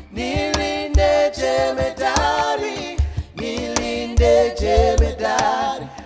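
Two male voices singing a slow gospel worship song in harmony, with low drum thuds underneath.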